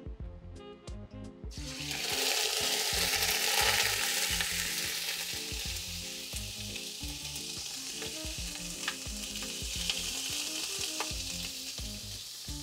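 A whole marinated beef roast goes into hot oil in a pot to sear, sizzling loud and sudden about a second and a half in, then settling to a steady frying sizzle. Soft guitar music plays underneath.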